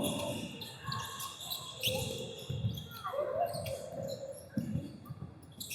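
Basketball being dribbled on a hardwood gym floor, several separate bounces ringing in a large hall, with a brief distant shout a little after the middle.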